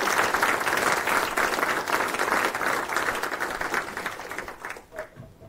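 Audience applauding, many hands clapping at once, which dies away near the end.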